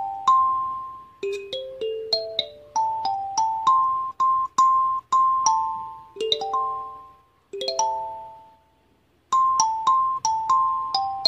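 Hluru 8-key kalimba being played: plucked metal tines ring and overlap in short runs of notes climbing and falling through the scale. There is a pause of about a second roughly three-quarters of the way through.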